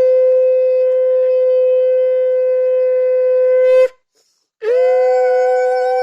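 Conch shell (shankha) blown in two long, steady blasts; the first cuts off about four seconds in, and after a short pause the second begins with a second, higher note sounding alongside, as a second conch would.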